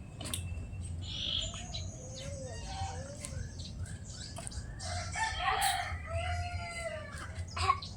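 A rooster crowing twice, with small birds chirping.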